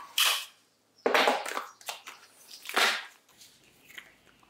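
Plastic packaging crinkling and rustling in three short bursts as it is handled and pulled open to unpack a new tool.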